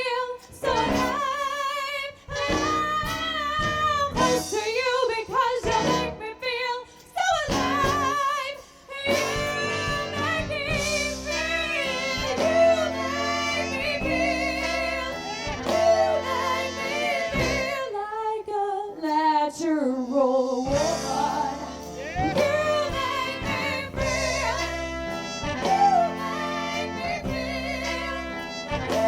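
A live soul band with a female lead singer holding long vibrato notes. The accompaniment is sparse at first, and the full band comes in about nine seconds in.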